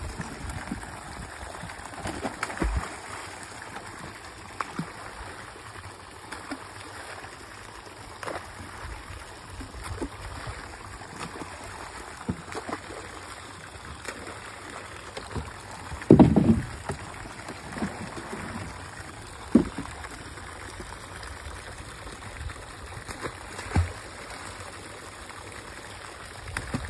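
Water pouring steadily from an outlet pipe into a pond, broken by a few short, louder splashes and knocks as young sturgeon are tossed from plastic crates into the water; the loudest comes a little past halfway.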